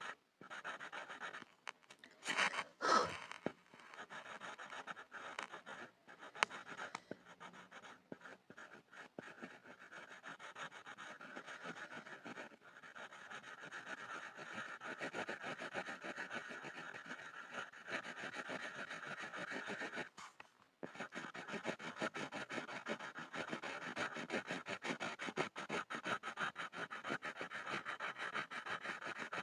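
Pencil scribbling on a board: fast, continuous scratching strokes. There are a couple of louder strokes about three seconds in and a short pause about twenty seconds in.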